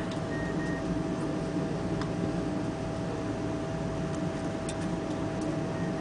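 Cabin noise inside a Boeing 777-300 taxiing after landing: a steady rumble of the engines at taxi power and the cabin air, with a constant whine through it and a couple of faint clicks.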